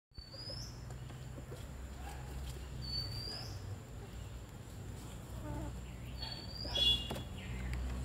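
A bird repeats a short upward-sweeping call about every three seconds, over a steady, thin, high-pitched insect drone and a low rumble. A brighter, louder call comes about seven seconds in.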